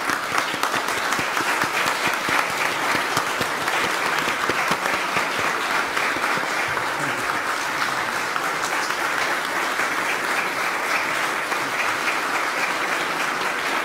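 Audience applauding: many hands clapping in a dense, even clatter at a steady level.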